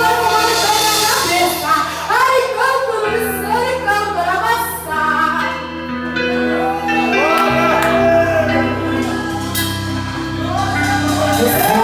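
Live gospel praise music: a sung melody over sustained bass and keyboard chords that change a few times.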